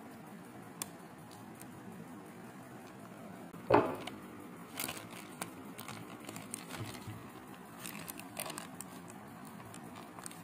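Thick chocolate cake batter dropping into a paper-lined baking tin and a silicone spatula scraping and spreading it over the paper, in soft wet squishes and scrapes, with one sharp knock a little before the middle.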